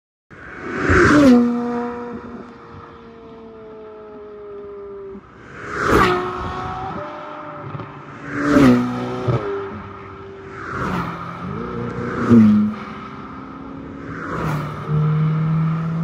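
Cars passing close by one after another, about six times, each engine note dropping in pitch as it goes past, with steadier engine sound from the next cars in between.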